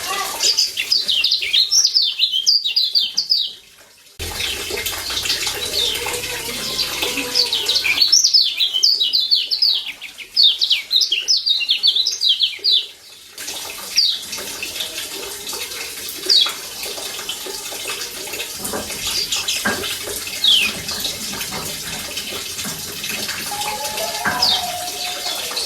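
Kecial kuning (Lombok yellow white-eye, a Zosterops) calling in rapid runs of quick, high, falling chirps, then single chirps spaced out, over a steady hiss.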